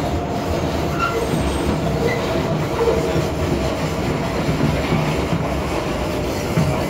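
R188 New York City Subway car running steadily: a continuous rumble of wheels on rail with a faint steady whine above it.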